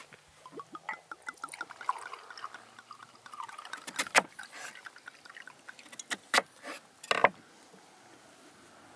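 Wine glugging from a bottle into a small glass, a quick run of gurgles for about three seconds. Then a few sharp knocks, around the middle and near the end.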